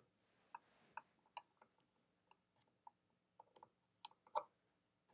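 Faint, irregular clicks of a screwdriver turning a long screw into a sewing machine's plastic bottom plate, the loudest near the end.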